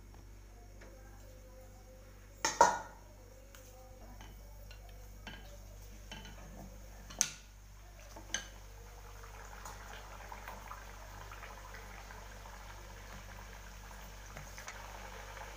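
A wheat-flour puri deep-frying in hot oil in a kadhai: steady sizzling and fine crackling that grows in the second half. A few sharp clinks cut across it, the loudest about two and a half seconds in and two more around seven and eight seconds.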